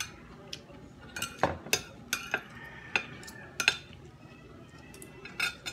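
Metal spoon and fork clinking and scraping on a ceramic plate, scooping up leftover rice: about ten sharp, irregular clinks, some leaving a brief ringing tone.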